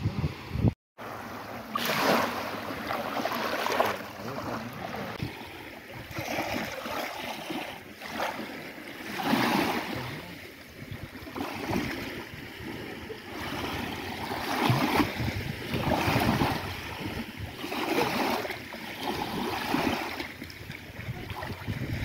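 Small lake waves washing in and draining back over a pebble beach at the water's edge, the swash rising and falling in surges every two to three seconds. The sound drops out briefly about a second in.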